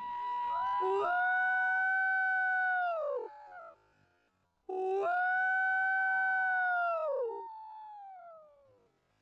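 Beagle baying on a rabbit's trail: two long howls, each held on one pitch for a couple of seconds and dropping away at the end, the second trailing off.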